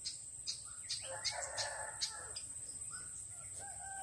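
A rooster crows faintly for about a second, starting about a second in, with a shorter call near the end. A steady high insect tone runs underneath, with short high bird chirps in the first half.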